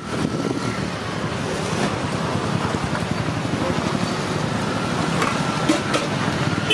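Steady street traffic noise, with a few light clicks about five to six seconds in.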